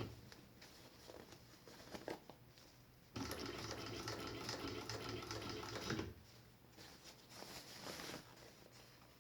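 Cylinder-bed industrial sewing machine, an Eagle clone of the Juki 1342, stitching nylon webbing onto a snowsuit cuff. It runs in one steady burst of about three seconds starting about three seconds in, with quieter clicks of handling before and after.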